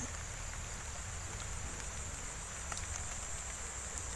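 Insects droning steadily at a high pitch, over a low outdoor rumble, with a few faint ticks.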